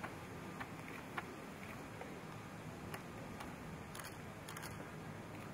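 Scattered sharp clicks at irregular intervals, several in all, over a steady low background noise.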